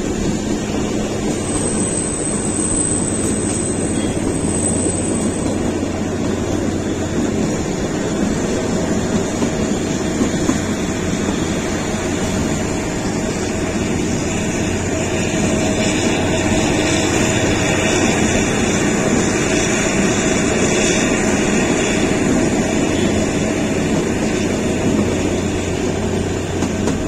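Kalka–Shimla narrow-gauge toy train running: the steady rumble and noise of the moving train, swelling a little louder for several seconds past the middle. A thin high whine sounds for a few seconds near the start.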